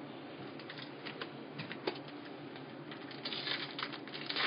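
Trading cards being flicked through by hand one after another: a run of light, irregular clicks and snaps of card stock that comes thicker about three seconds in.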